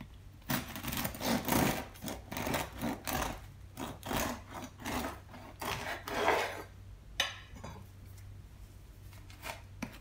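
Serrated bread knife sawing through the hard crust of a freshly baked sourdough loaf, about two to three rasping strokes a second for some six seconds, then stopping; a single sharp click follows about a second later.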